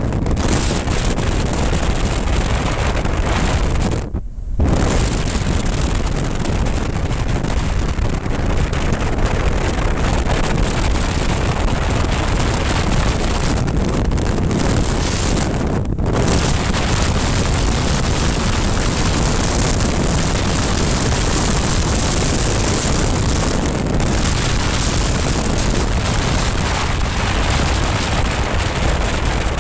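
Heavy wind rushing over the microphone of a BMW R1200GS Adventure at road speed, with the bike's boxer-twin engine running underneath. The wind rush drops away briefly twice, about four and about sixteen seconds in.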